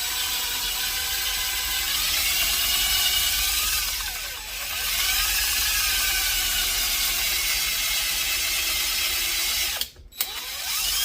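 Hand drill running, drilling deeper into a broken-off fastener in an aluminum block to make room for a screw extractor. Its whine bends in pitch as the speed varies, dips briefly about halfway, stops near the end and then runs again for a moment.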